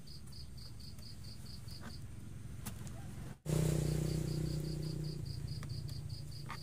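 An insect chirping steadily in short high pulses, about five a second. About halfway through, a low steady hum comes in and is the loudest sound, slowly fading.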